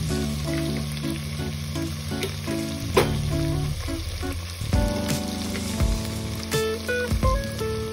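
Mutton pieces and masala paste sizzling in hot oil in a steel pressure cooker, with a sharp tap about three seconds in. Background music with stepping notes plays throughout.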